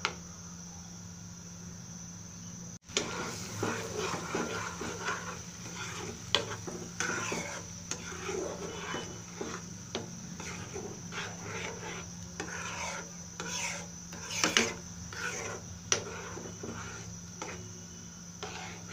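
A metal spoon stirring and scraping thick butter chicken gravy in a nonstick pan, with many short scrapes and clicks of the spoon against the pan, starting about three seconds in. A steady hum runs underneath.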